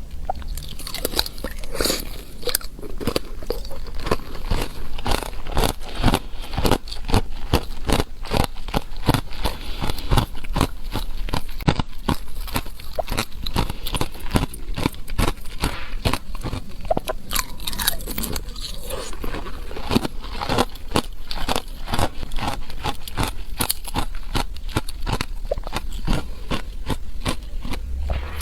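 Thin ice being bitten and chewed close to the microphone: a dense run of rapid crunches and cracks.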